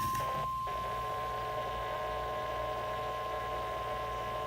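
NOAA Weather Radio 1050 Hz warning alarm tone: a single steady high-pitched tone held without a break, the signal that a warning-level alert, here a flash flood warning, is about to be read.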